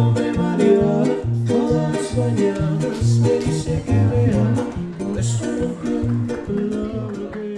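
A trio huasteco playing an instrumental passage: violin melody over a strummed jarana huasteca and the regular deep bass notes of a huapanguera, the music starting to die away near the end.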